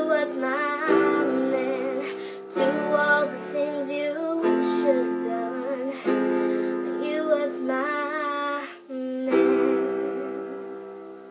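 Piano chords with a woman's voice singing over them, with no words picked up, in a slow ballad. The last chord rings and fades away near the end.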